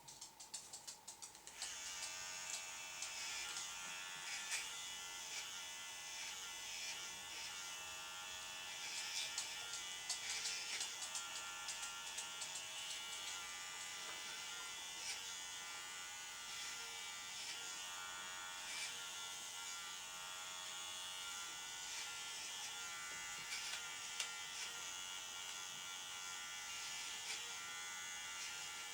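Electric pet grooming clippers switching on about a second and a half in and then running with a steady buzz, with a few brief clicks along the way.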